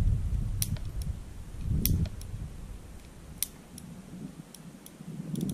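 Small metallic clicks from a Ruger Bearcat single-action .22 revolver being handled, its cylinder turned by hand with the loading gate open to clear the chambers. About eight sharp clicks come at irregular intervals.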